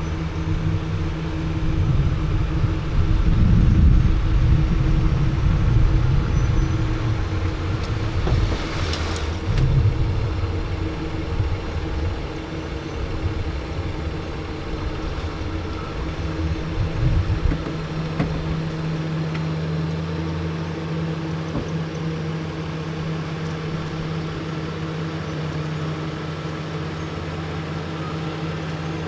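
A vehicle engine running steadily while a stuck pickup is pulled forward through soft sand. A heavier low rumble fills the first half, loudest a few seconds in, with a brief rattle about eight or nine seconds in, then settles to an even idle after about two-thirds of the way.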